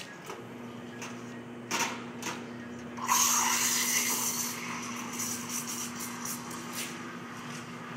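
Commercial espresso machine: the pump starts a steady hum as a shot is pulled, with a short knock near two seconds in. About three seconds in, the steam wand opens with a loud hiss that settles into a steady hiss with small crackles as milk is steamed in a steel pitcher.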